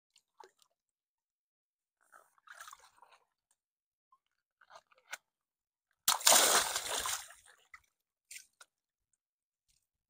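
A large water-filled balloon bursts with a sudden pop about six seconds in, and its water gushes and splashes down into the plastic paddling pool for about a second and a half. Before that there are only a few faint small water and handling sounds.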